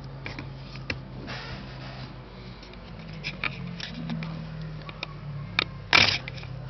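Handling of a Yashica Electro 35 CC rangefinder camera: scattered small clicks and a brief rubbing, then one loud, sharp mechanical click about six seconds in.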